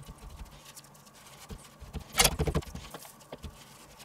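A hand patting and pressing dry spice rub onto raw pork steaks on a wooden cutting board: faint soft thumps, with a quick run of slaps and taps about two seconds in.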